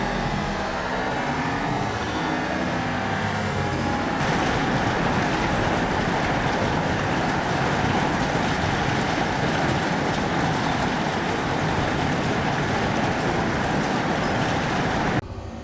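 Hail pelting down in a dense, continuous clatter of countless small impacts, growing heavier about four seconds in and dropping off suddenly near the end.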